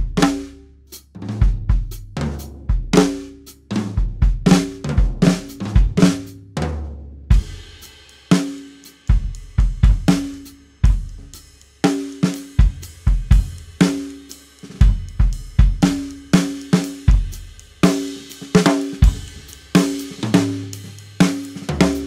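A 1970s Ludwig drum kit played as a groove with fills: kick drum, snare, pitched tom-toms, hi-hat and cymbals. A cymbal wash rings through the middle stretch.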